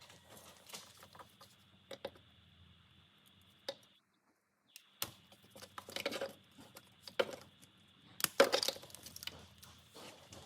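Scattered light clinks and knocks of metal tools or parts being handled, with busier clusters of clatter about six seconds in and again near the end.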